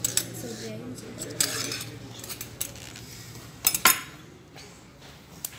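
Metal cutlery clinking and scraping against ceramic plates and dishes, with scattered sharp clinks; the loudest is a quick pair of clinks just under four seconds in.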